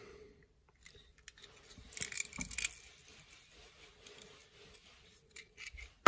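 Rotary RG6 coax stripping tool turned around a coaxial cable, its blades scraping through the plastic jacket and dielectric in faint, uneven scrapes and clicks.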